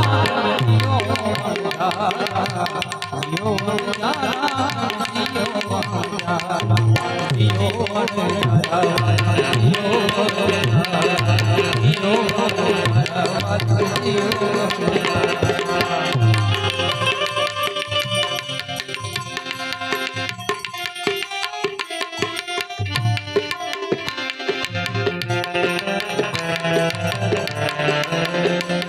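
Instrumental interlude of a Gujarati folk lullaby (halardu): a hand drum keeps a steady rhythm under a harmonium melody. About two-thirds of the way through, the melody thins out for a few seconds and the drum is left mostly on its own before the melody returns.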